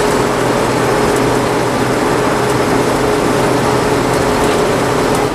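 Cube van's engine and road noise heard from inside the cab while driving at a steady speed, a constant roar with a steady drone.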